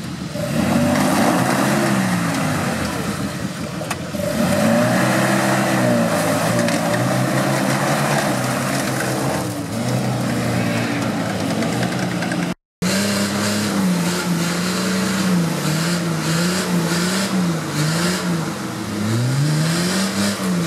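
Off-road 4x4 engines revving hard under load, the pitch rising and falling over and over as the wheels fight for grip in mud. There is a brief break about two-thirds of the way in, then another engine revs up and down in quick swings.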